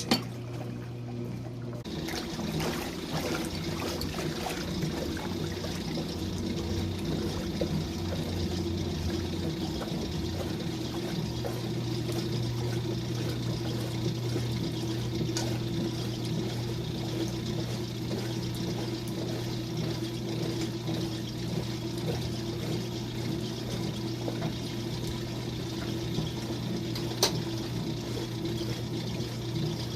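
Wringer washing machine running with a steady motor hum while water pours and sloshes, with a sharp click at the start and another near the end.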